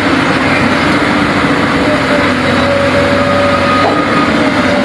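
Sany excavator's diesel engine running steadily under work, with a steady whine joining in about two seconds in.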